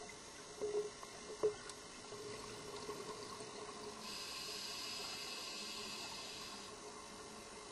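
A scuba diver's regulator heard underwater: a few soft knocks in the first second and a half, then the steady hiss of an inhalation starting about four seconds in and lasting over two seconds.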